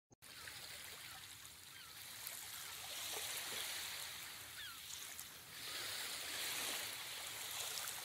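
Faint ocean waves washing onto a shore, rising and falling in slow surges, with a few faint short bird calls.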